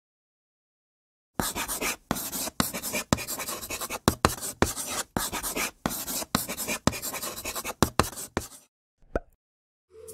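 A pen scribbling on paper in quick, irregular scratchy strokes, starting about a second and a half in and stopping a little over a second before the end, with one short scratch after a pause.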